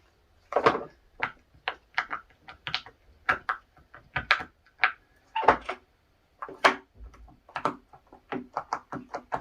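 Silicone pop it fidget toy bubbles being pressed in one after another: a series of short hollow pops at an uneven pace, coming faster near the end.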